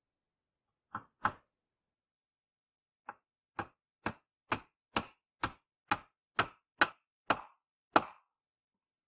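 Hammer blows driving a nail through a wooden batten that holds birch bark down on a hut roof: two blows about a second in, then a steady run of about a dozen blows, about two a second, the last ones loudest.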